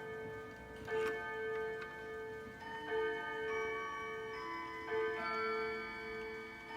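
Seth Thomas beehive mantel clock's hammer striking its coil gong about every two seconds, each blow ringing on long enough to overlap the next, as the clock counts out the hour.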